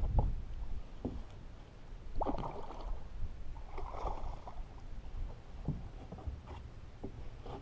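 A hooked snook splashing at the surface beside the boat while being played on a fly rod: two splashes, about two and four seconds in, with faint water sloshing between.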